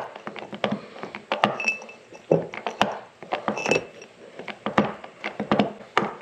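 Hand-lever grease gun being pumped, giving an uneven run of metallic clicks and clanks with a couple of short high squeaks, as it forces grease into a CV joint housing until it packs around the bearings.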